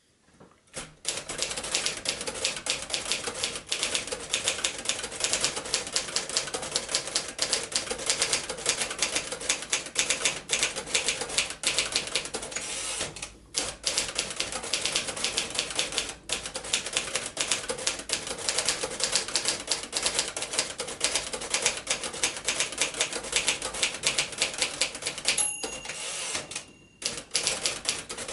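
1951 Royal Quiet De Luxe portable typewriter being typed on steadily: a fast run of key and typebar clacks with two short pauses. A brief ringing tone sounds near the end.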